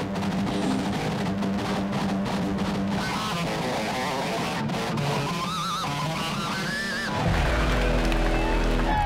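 Electric guitar playing a rock riff, with bent, wavering notes in the middle; a deep sustained low note comes in about seven seconds in.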